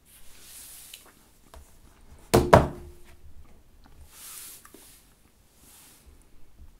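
Handling noise: two quick thunks close together about two and a half seconds in, with soft brushing sounds before and after.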